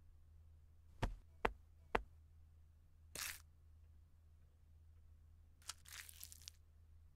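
Three light knocks about half a second apart, then a short swish. About six seconds in, a brief scraping as a small knife spreads pink icing onto a sponge cookie.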